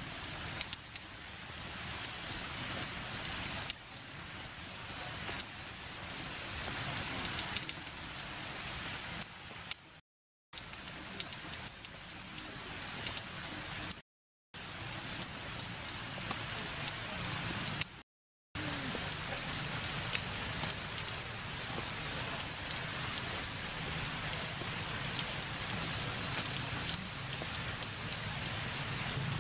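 Heavy rain falling steadily on forest leaves and stone, a dense even hiss. The sound cuts out completely for a moment three times, at about 10, 14 and 18 seconds in.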